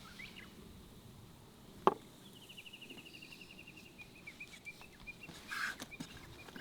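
A songbird's rapid trill of short, even notes, falling slightly in pitch and lasting about four seconds. A single sharp knock comes about two seconds in and is the loudest sound.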